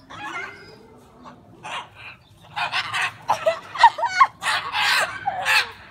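Parrots squawking and screeching at one another in a squabble. A few quieter calls come first, then a dense run of loud, harsh screeches from about two and a half seconds in.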